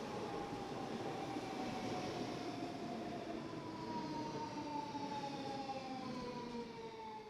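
A train slowing down, its rumble carrying a whine of several tones that falls steadily in pitch as it decelerates, fading off near the end.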